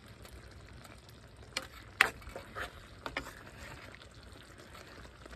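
Metal ladle stirring and scooping thick sauce in a pot, clinking against the pot four times, loudest about two seconds in.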